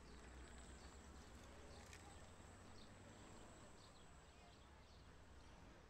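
Near silence: a faint outdoor background hum with scattered faint, high bird chirps.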